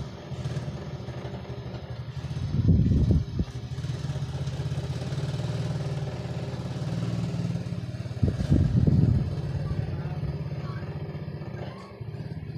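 An engine running with a steady low drone that swells louder twice, briefly.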